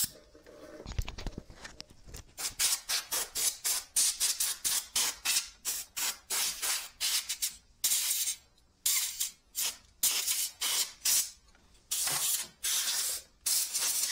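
Compressed-air blow gun fired at a circuit board to clear debris. It comes in quick puffs, about two or three a second, then in a few longer blasts toward the middle and end.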